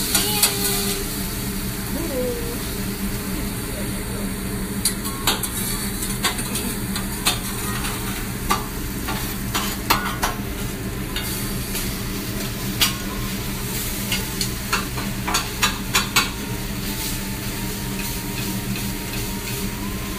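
Food sizzling on a hibachi's flat steel griddle while a metal spatula scrapes and clacks against the plate, with a run of sharp clacks through the middle, over a steady low hum.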